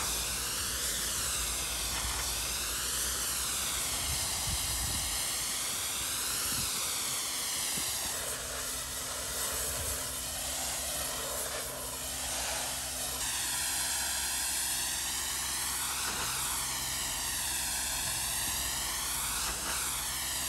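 Steam cleaner lance spraying a high-pressure jet onto stonework, a continuous hiss whose tone sweeps slowly up and down as the nozzle moves, over a steady low hum.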